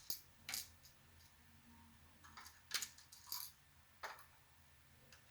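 Faint, scattered metallic clicks and taps, about seven in all, from small screws and metal parts being handled while a replacement voltage regulator is fitted to the circuit board.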